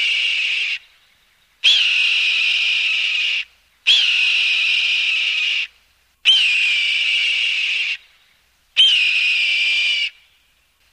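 Hawk screaming: a loud, high, drawn-out cry that opens with a quick upward flick and then holds, sagging slightly in pitch. The cries are nearly identical and repeat about every two seconds, five of them, with silence between.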